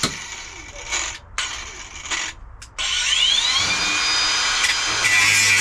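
Handheld power cutting tool triggered in two short bursts, then spinning up with a rising whine about halfway through and running steadily, as it cuts into a car's rusted floor pan.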